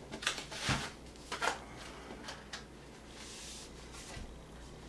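Light clicks and rustles of computer parts and cables being handled, with a soft sliding hiss about three seconds in.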